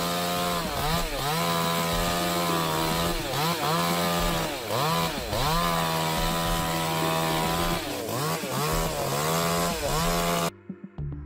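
Chainsaw engine running at high revs, its pitch dipping and coming back up several times as it works, then cutting off suddenly near the end.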